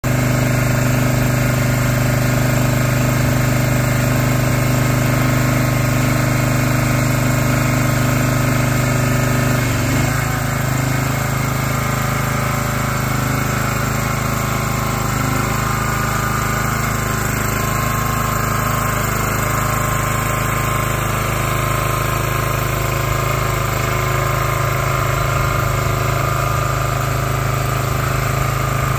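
Engine of a Sungdo tracked orchard aerial work platform running steadily while it drives the hydraulic boom, with a brief change in its note about ten seconds in. The engine has recently been replaced with a new one.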